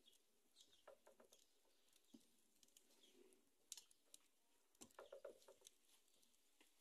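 Near silence, with faint scattered clicks and ticks, a small cluster of them about a second in and another about five seconds in.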